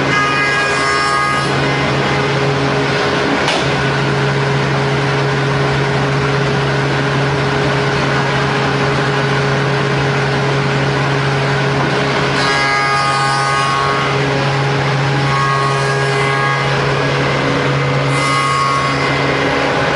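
CNC wood mortising machine running: a steady motor hum under dense machining noise, with a higher ringing tone that comes and goes several times as the cutter works the timber.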